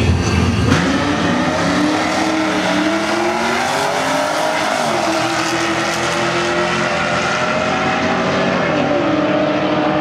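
Two cars, one a Chevrolet Camaro SS, launching off the drag strip start line about a second in and accelerating hard down the quarter mile. Their engine notes climb, then drop back at gear shifts about halfway through and again near the end.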